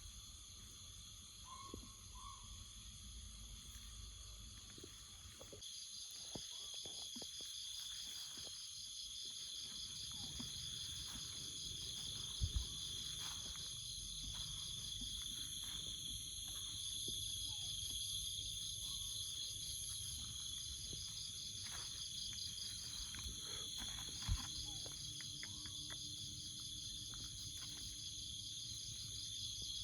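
Jungle insect chorus: several steady, high-pitched shrilling drones, with a pulsing trill joining about six seconds in. Scattered faint rustles and clicks, and two short knocks, about twelve and twenty-four seconds in.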